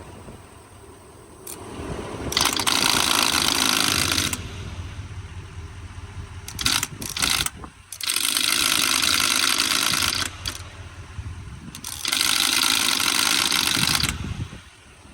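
Freightliner semi-truck's starter cranking the diesel engine in three tries of about two seconds each, with a quick clatter of clicks between the first two, without the engine catching. The starter is engaging only some of the time, which is traced to a loose or hung-up starter wire.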